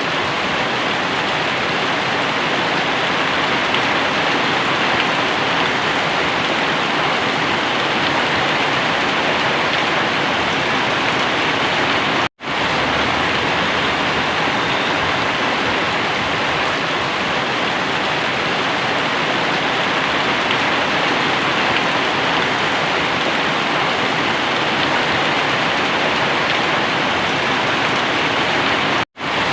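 Very heavy rain pouring down in a steady, dense hiss. It cuts out completely for an instant twice, about twelve seconds in and near the end.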